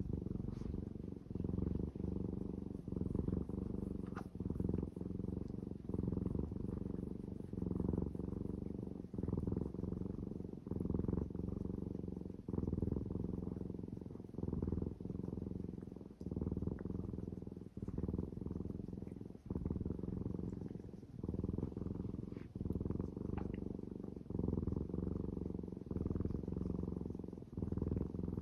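Domestic cat purring close by, a low steady rumble that rises and falls with each breath in and out.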